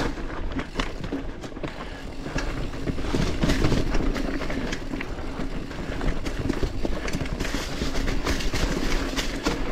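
Mountain bike ridden over a rough, leaf-covered technical trail: the tyres run over roots, rocks and dry leaves, and the bike rattles and clatters with many irregular knocks over the bumps.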